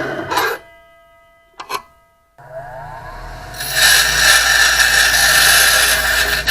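Power tool cutting 5/16-18 threaded rod: the motor winds down in the first half-second, a sharp metallic click follows, then the motor spins up again at about two and a half seconds and runs loud and steady while it cuts.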